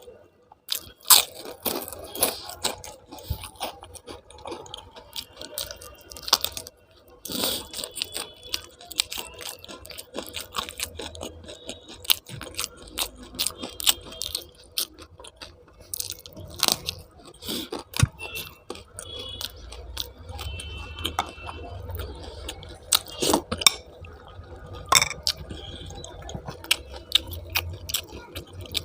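A person eating close to the microphone: chewing and crunching food, with sharp crackles at irregular intervals.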